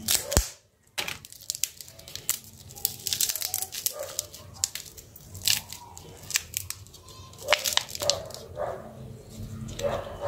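Parts of a Micromax Q301 smartphone being handled and pried apart: a thin plastic sheet crinkling, and scattered clicks and taps of plastic and metal. There is a brief drop-out near the start.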